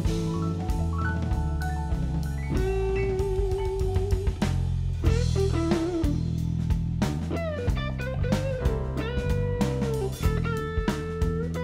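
Live blues-rock band playing an instrumental passage: a lead electric guitar holds and bends notes over bass guitar and a drum kit.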